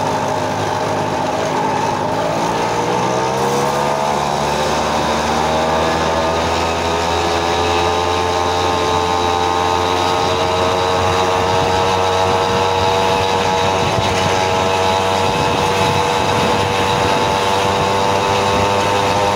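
Small engine of a motorized tricycle running under way: its pitch climbs as it speeds up about two to four seconds in, then holds at a steady cruising speed, with wind and road noise over the microphone.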